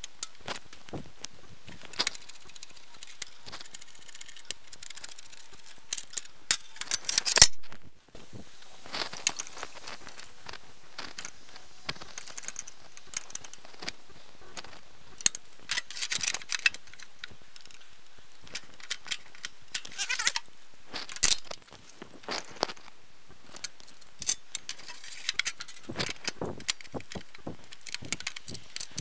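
Clicks, clinks and rattles of hand tools and metal tractor parts, played back at four times speed so they come in quick, high-pitched flurries, as a hydrostatic control plate and neutral pointer are removed and readjusted. Louder clatter about seven seconds in and again about twenty-one seconds in.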